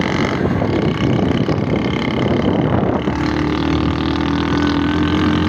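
Motorcycle engine running as the bike is ridden along a road, mixed with wind rushing over the phone's microphone. About three seconds in, the sound changes to a steadier engine hum.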